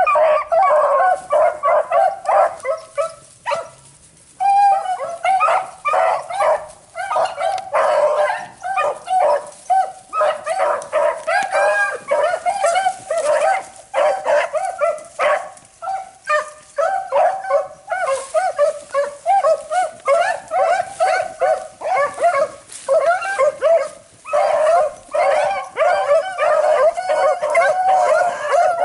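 A pack of beagles baying on a rabbit's track: a dense chorus of short, overlapping yelps and bawls, with a brief lull a few seconds in.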